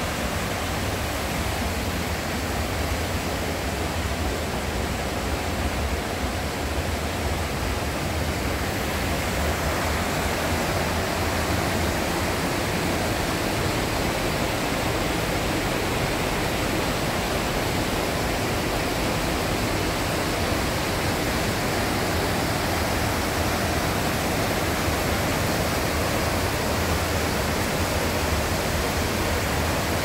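A mountain river rushing over rocks and a small weir: a steady rush of water.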